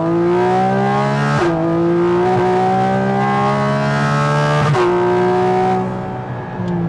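Porsche 718 Cayman GT4 RS's 4.0-litre flat-six on the stock exhaust with its valves closed, accelerating hard under full throttle. The engine note climbs and drops sharply at two quick PDK upshifts, about a second and a half and nearly five seconds in, then eases off near the end.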